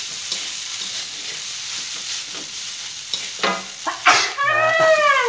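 Fried rice sizzling in a metal wok as a wooden-handled spatula stirs and scrapes it over a gas flame. A person's drawn-out voice rises over it in the last second and a half.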